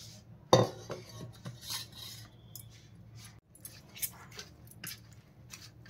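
Hand mixing and kneading flour dough in a stainless steel plate: light scrapes and metallic clinks against the steel, the sharpest clink about half a second in, then scattered softer ones.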